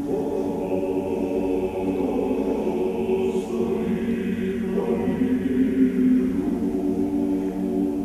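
Male choir singing a cappella in held chords, all coming in together right at the start.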